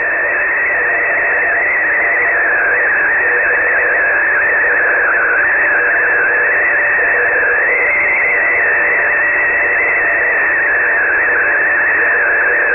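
Shortwave receiver audio from 3591.40 kHz: static hiss with a single steady-ish tone that wavers slowly up and down in a high pitch, and faint lower hum-like tones beneath it, all squeezed into a narrow radio passband.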